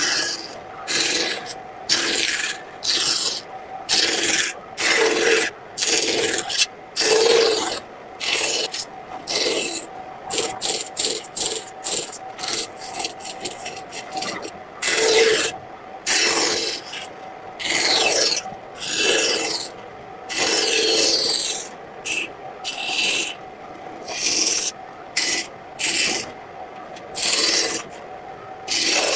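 A tool cutting and scraping across a painted wood panel in repeated strokes, each up to about a second long with short pauses between, and a quicker run of short strokes in the middle. A faint steady hum sits underneath.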